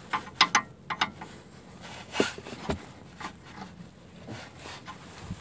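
An open-end wrench clicks and scrapes on the flats of a Renault Scenic 2's steering tie rod as the rod is turned to adjust the front wheels' toe. It comes as a string of irregular sharp clicks, the loudest in the first second and again about two seconds in, then lighter ticks.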